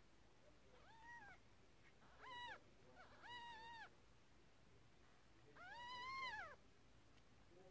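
Cat meowing: four short, high, arching meows, the last one about six seconds in the longest and loudest.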